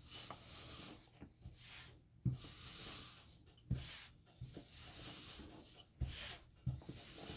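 Wooden rolling pin rolling over flatbread dough on a floured counter: faint repeated rubbing passes, broken by several light, low knocks.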